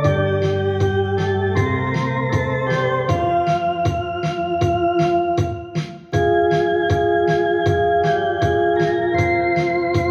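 Two-manual electronic home organ playing a slow hymn in held chords, with a steady pulse of about three ticks a second. The chords change every second or two; the sound fades to a brief gap about five and a half seconds in, and a new chord enters about six seconds in.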